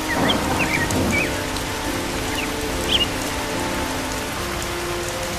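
Steady heavy rain sound effect over a soft, sustained background music bed. It swells briefly louder just after the start, and a few short high chirps come through.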